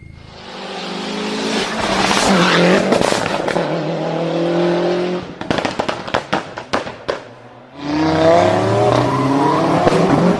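A high-revving car engine accelerating hard, then lifting off about five seconds in with a rapid string of sharp exhaust pops and bangs lasting about two seconds, then revving hard again near the end.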